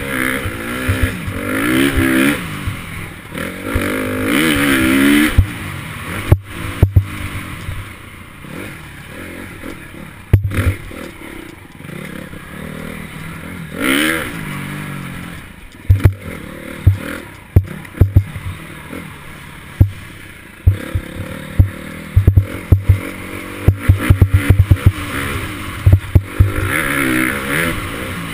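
Dirt bike engine picked up by an on-board camera, revving up and falling off again and again as the rider works through the gears, quieter and lower for a stretch in the middle. Many sharp knocks and rattles sound over the bumps, thickest in the second half.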